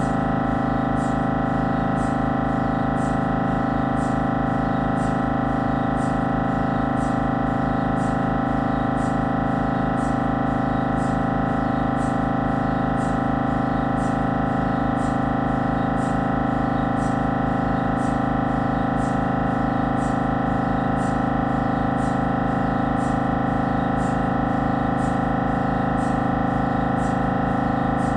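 Siemens Magnetom Avanto 1.5 T MRI scanner running a scan sequence, its gradient coils giving a steady, loud buzzing drone of many tones, with faint ticks repeating about two a second.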